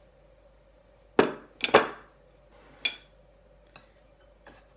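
A ceramic plate is set down on a wooden table, and a metal spoon clinks against the plate. There are three sharp clinks close together a little over a second in, one more about a second later, then a couple of faint taps.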